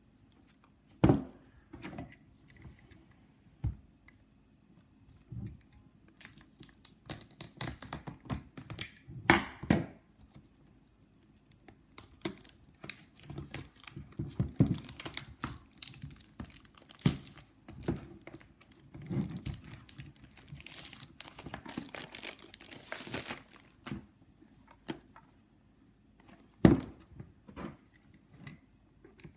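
Ring Video Doorbell box being opened by hand: irregular crinkling and tearing of cardboard and plastic packaging, with a few sharp knocks.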